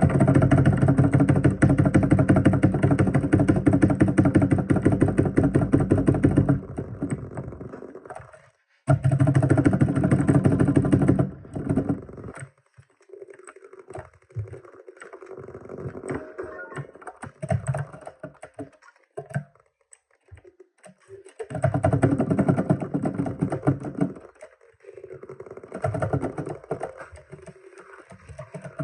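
Computer keyboard being typed on rapidly, in fast bursts of key clicks. The bursts are loudest in the first six seconds, with quieter, sparser typing between them.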